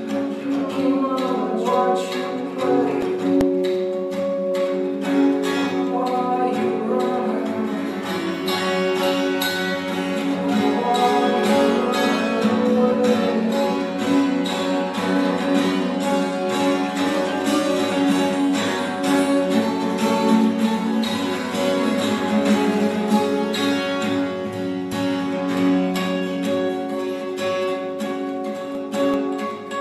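Nylon-string classical guitar played solo with rapid, continuous strumming, its chords ringing on under the rhythm.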